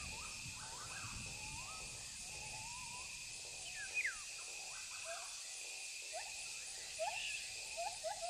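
Tropical rainforest ambience: a steady high insect drone with scattered short whistled bird calls, some sliding up and others falling, and a quick run of rising calls near the end.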